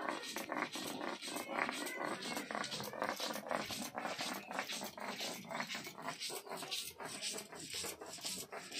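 Spices being ground into a wet paste on a sil-batta, a flat stone slab with a stone muller pushed back and forth by hand, giving a rhythmic gritty scraping, stroke after stroke.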